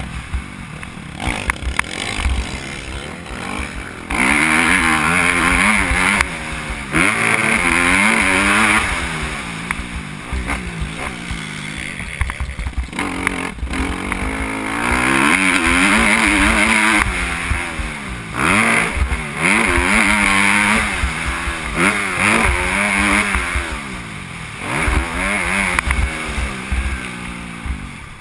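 Motocross bike engine heard on board, revving up hard and dropping back again and again as the rider accelerates, shifts and slows for corners on the dirt track.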